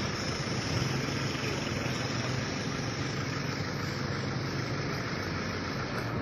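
Steady vehicle engine and road noise: an even rushing sound with a low engine hum underneath.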